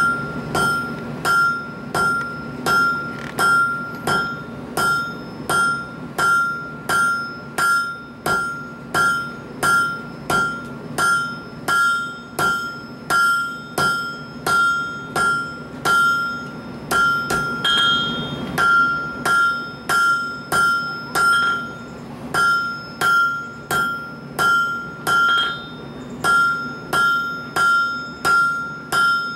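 Hand hammer striking red-hot steel bar stock on an anvil in a steady rhythm, a little more than one blow a second, each blow leaving a clear metallic ring. There is a short break in the rhythm about two-thirds through.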